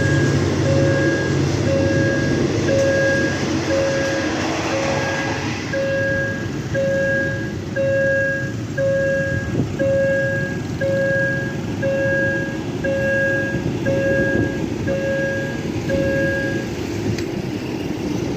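Railway level-crossing warning signal beeping about twice a second over the rumble of a passing train; the beeping stops near the end.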